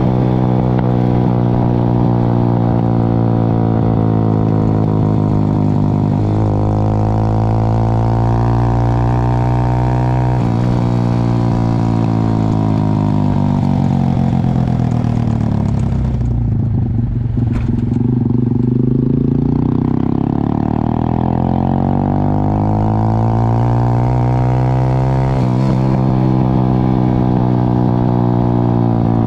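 Motorcycle engine running under way, its pitch rising and falling as the bike accelerates and changes gear, with a few sudden steps in pitch at the shifts. About halfway through it eases off and drops low for a few seconds, then picks up again.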